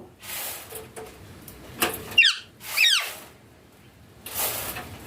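Indian ringneck parakeet giving two short squawks that sweep downward in pitch, about two and three seconds in, with brief hissy rustles before and after.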